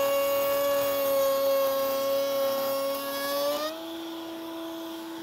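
Table-mounted router cutting along a board's edge at an even, correct feed speed, the bit holding the same revolutions and the same steady sound through the cut. About three and a half seconds in, the cutting noise drops away and the motor's pitch rises slightly as the bit runs free.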